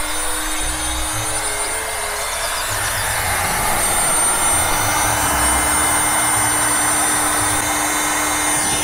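Electric hot-air weed killer running: its fan blows a steady rush of very hot air with a low hum onto a thistle, growing a little louder a few seconds in.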